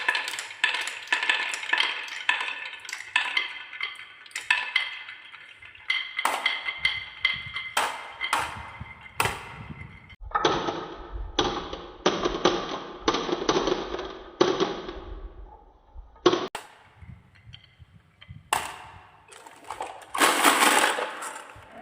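Balls rolling and clacking down a handmade marble run. First comes a quick string of ringing clicks, then several seconds of rolling with a low rumble and knocks, and a short hissing burst near the end.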